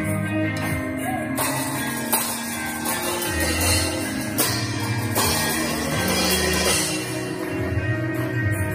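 Drum kit played with sticks, cymbals washing over a groove, along with accompanying music that has held bass notes.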